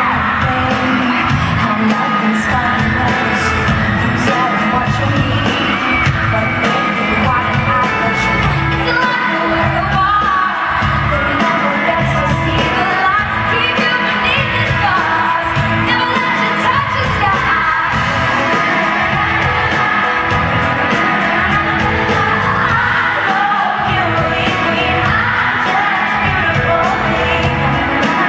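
Live pop band with a female singer: sung vocals over drums, bass guitar and guitar with a steady beat, amplified through the PA of a large hall and heard from the audience.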